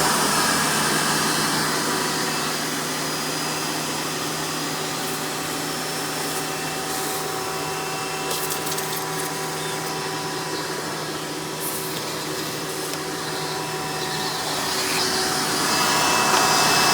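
Hoover Futura Elite upright vacuum's direct-air motor and fan running steadily in tool mode, a constant hum with air rushing through the hose. It is slightly quieter through the middle and louder again near the end.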